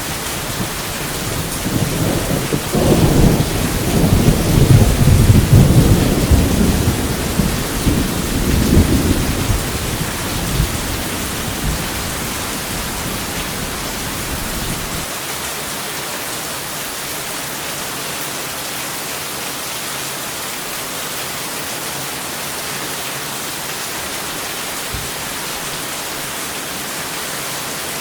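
A long roll of thunder rumbles over steady rain. It swells about two seconds in, peaks over the next several seconds and dies away by about ten seconds, leaving the even hiss of the rain.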